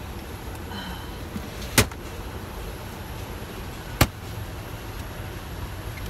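Two sharp metal clacks about two seconds apart from a galley's cart and compartment doors and latches being handled, the second the louder. A steady low rumble from the parked airliner's cabin lies under them.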